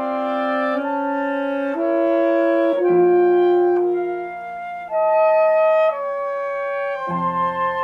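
Chamber music for saxophone, clarinet, flute and piano, with the wind instruments playing held notes in harmony. The chords change about once a second.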